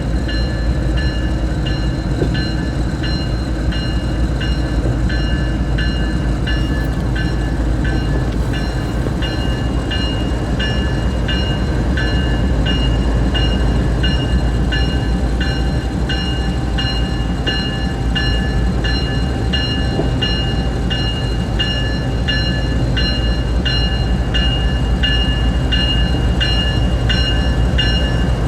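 Diesel locomotive running with a low, steady rumble while its bell rings continuously at about two strokes a second.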